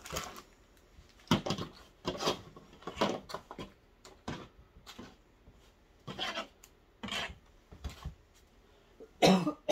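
Clear plastic packaging crinkling and rustling as small doll accessories are gathered up and put back into a cardboard box. It comes in irregular bursts about once a second, with a louder one near the end.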